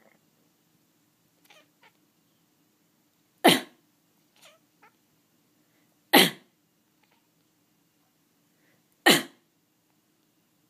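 A person coughing three times, about three seconds apart, each a short loud cough, with a cat meowing in response: short, faint meows between the coughs.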